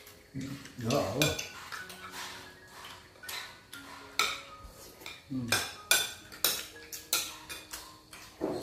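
Metal cutlery clinking and scraping against plates while eating, about a dozen sharp clinks with brief ringing, coming more often in the second half.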